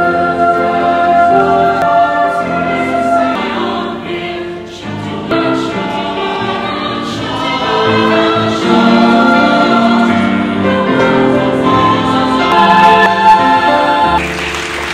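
Mixed-voice choir singing in parts, sustained chords moving from note to note.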